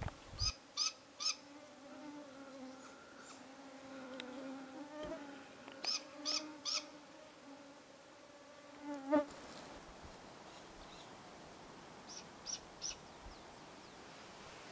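A flying insect buzzing close to the microphone for several seconds, ending abruptly about nine seconds in. Three times, at the start, about six seconds in and near the end, a bird gives a quick run of three short, high calls.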